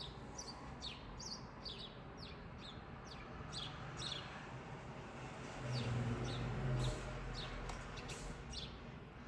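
Small birds chirping: many short, quick, downward-sliding chirps repeating a few times a second. A low rumble swells for about a second near the middle.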